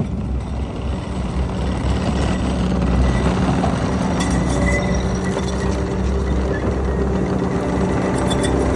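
Skid steer engine running steadily and driving a TurboMulcher TM60 mulching head, a steady mechanical noise with a low hum, getting a little louder about two seconds in.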